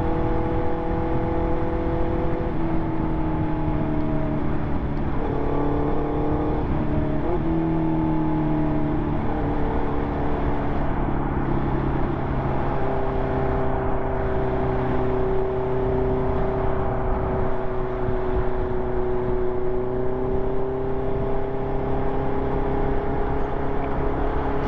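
A Honda CB650R inline-four motorcycle engine running through an SC Project aftermarket exhaust while being ridden. The engine note shifts up and down several times in the first nine seconds or so, then holds a steady cruising pitch.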